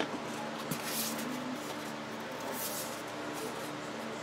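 Faint rustling and light scraping of hands handling the open laptop and its drive, a couple of soft swishes, over a steady low hum.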